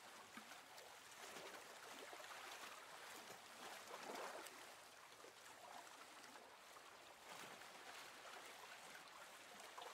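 Faint, steady rushing of water, like surf washing in.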